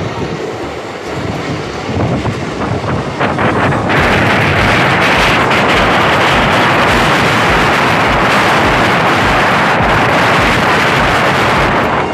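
Passenger train running, its rumble mixed with heavy wind rushing over the microphone, stepping up to a louder, steady rush about four seconds in.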